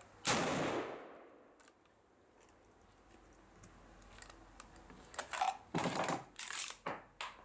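A single shot from a SIG Stgw 57 rifle in 7.5x55, dying away over most of a second. Then a run of metallic clicks and rattles as the magazine is swapped and the action worked by hand.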